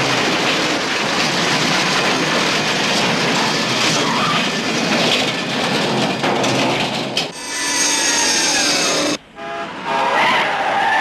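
Train running past with its wheels clattering, then a horn whose pitch falls as it passes. About nine seconds in, the sound cuts out sharply.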